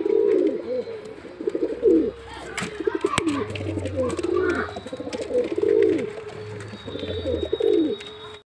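Andhra high flyer pigeon cooing over and over, a string of short coos at roughly one a second, the bow-coo of a male in display. The sound cuts off just before the end.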